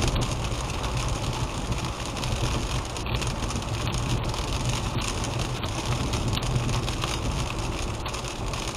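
Steady car cabin noise on a wet road at about 50 mph: tyre hiss and road drone, with rain on the windshield.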